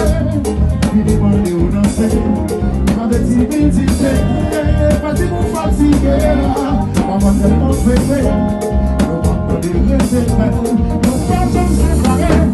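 Live band playing loud, with drums and percussion struck close by, a heavy bass end and a singing voice.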